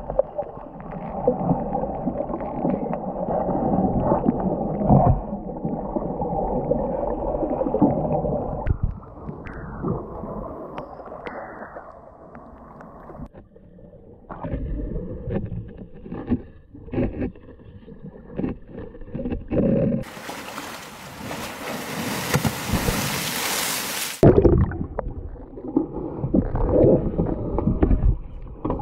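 Muffled underwater water sounds from an elephant swimming and wading: gurgling and sloshing with scattered knocks. About two-thirds of the way through there are a few seconds of loud, bright hissing.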